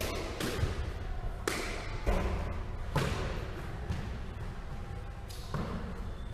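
Squash rally: the ball smacks off the rackets and the court walls about five times at uneven intervals, each hit sharp and echoing in the enclosed court.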